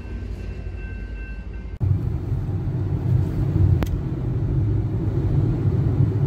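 Steady low rumble of a moving vehicle. It cuts out briefly about two seconds in and returns louder.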